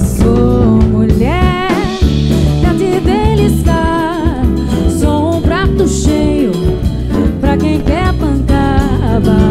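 Live Brazilian samba/MPB band music: a woman's gliding vocal line over electric guitar and drum kit.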